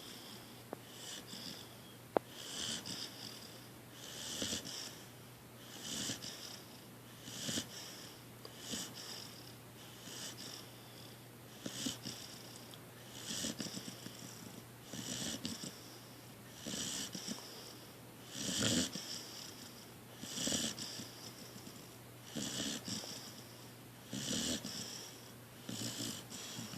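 A sleeping dog snoring, one snore with each breath about every one and a half to two seconds, each with a high hissing edge and a low rasp under the louder ones.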